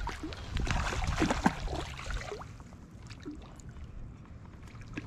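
A hooked trout splashing at the water's surface as it is brought to the net, with short gurgles of water. The splashing is busiest for about the first two seconds, then dies down.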